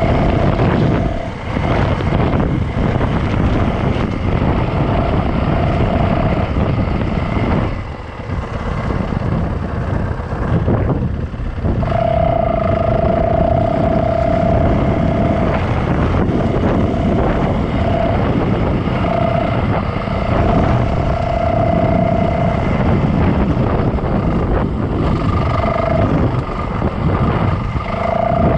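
Yamaha dirt bike engine running under way on a dirt trail, its note rising and falling with the throttle. It holds a steady tone for stretches, with a few brief dips where the throttle comes off.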